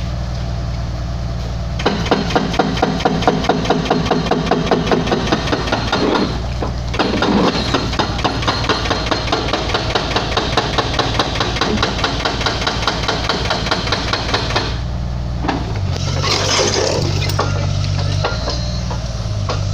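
An excavator's hydraulic breaker hammering a concrete bridge railing in rapid, evenly repeated blows, over the excavator's steady engine. The hammering pauses briefly about six seconds in and stops near the fifteen-second mark, leaving the engine running on its own.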